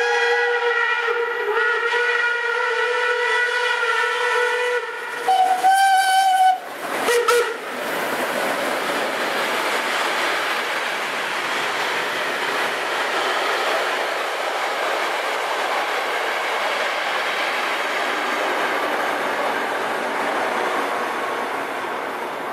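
Steam locomotive whistles sound a long multi-note chord, then several short blasts about five to seven seconds in. After that comes the steady wheel and running noise of a steam special's coaches passing close by.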